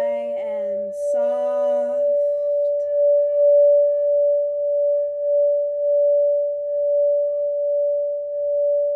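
A sacral chakra singing bowl rings one steady, sustained tone that swells and fades in a slow regular pulse. Near the start, two short low vocal tones sound over it.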